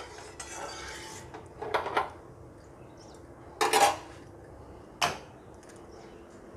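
Metal spatula scraping and stirring in a metal kadhai of oil warming on a gas stove, then metal clanks of spatula and pan: one about two seconds in, a louder one a little past the middle, and a short sharp click about five seconds in.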